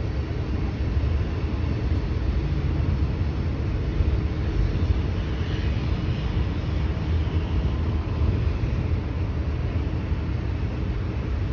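Freight train rolling past on the elevated line, a steady low rumble with no breaks.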